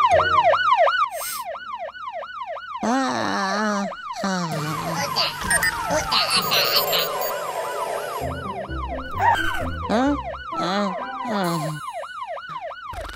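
Cartoon fire engine siren in a fast up-and-down yelp, about four sweeps a second, with other cartoon sound effects layered over it in the middle.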